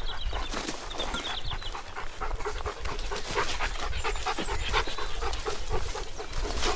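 A dog panting, in short repeated breaths, with a bird chirping briefly in the first second.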